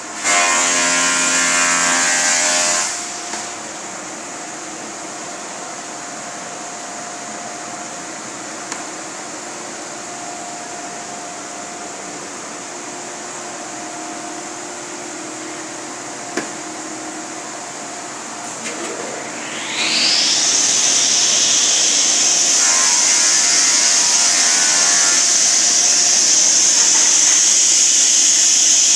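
A sliding-table panel saw starts about two-thirds of the way in: its motor and blade spin up with a whine that rises quickly in pitch, then run steadily at a high pitch. Before that, a steady low shop hum with a couple of single sharp knocks, and a loud burst of machine noise in the first few seconds.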